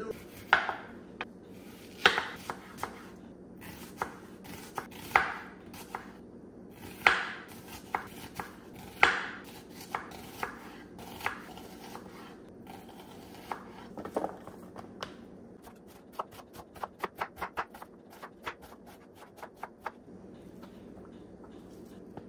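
Kitchen knife slicing a red onion on a wooden cutting board: sharp, uneven knocks of the blade about once or twice a second, then a quick run of cuts about five a second that stops near the end.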